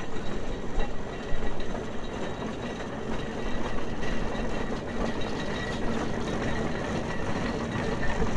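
Case 150-HP steam road locomotive, a large steam traction engine, driving past with its engine and running gear making a steady mechanical noise.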